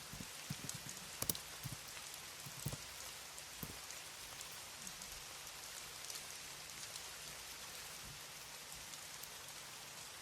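Steady soft hiss of a rain-like ambience. A few isolated computer keyboard key clicks come in the first four seconds, then only faint scattered ones.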